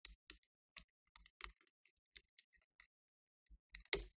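Irregular, sharp plastic clicks and taps as a Dell Inspiron 14 N4050 laptop keyboard is pressed toward the screen and worked loose from its retaining clips, with the loudest snap near the end.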